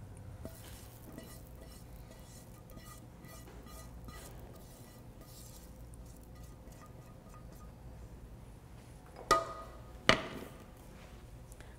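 A spatula scraping browned butter out of a nonstick skillet into a stainless steel bowl, with faint scrapes and light ticks. Then two sharp metallic clanks with a short ring, about nine and ten seconds in, as the skillet is set down on the stove.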